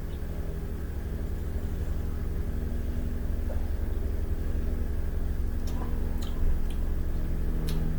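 A steady low background rumble and hum, with a few faint clicks in the second half.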